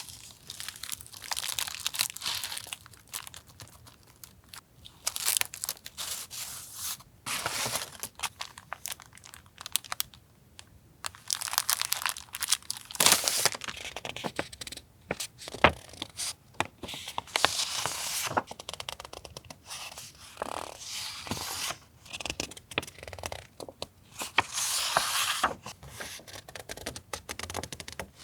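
Paper being handled: rustling, tearing and crinkling in irregular bursts with short pauses between, and a few sharp taps.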